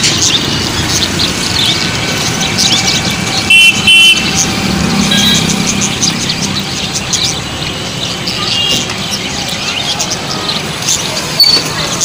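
Street traffic with a vehicle horn honking twice, loudly, about four seconds in, over the steady chirping of many caged small parrots such as lovebirds.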